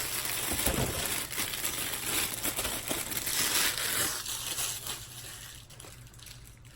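Small plastic bags of diamond painting drills crinkling as they are handled, quieting after about five seconds.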